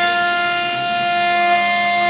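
CNC router spindle running at speed with a steady high whine while its bit routes a pattern into a wooden door panel.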